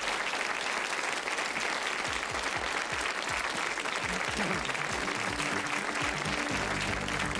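Studio audience applauding steadily. About two seconds in, music comes in underneath with low notes, and fuller sustained tones join near the end.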